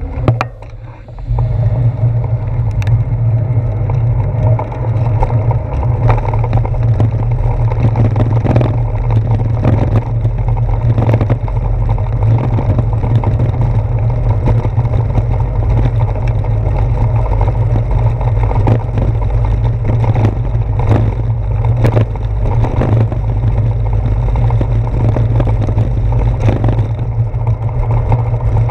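Steady low rumble of wind and road vibration picked up by a handlebar-mounted GoPro Hero 4 on a moving bicycle, with frequent short knocks and rattles from bumps in the road. It is quieter for about the first second, then picks up and stays steady.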